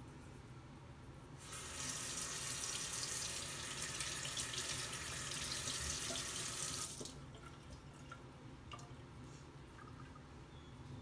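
Bathroom sink tap running for about five seconds, then shut off.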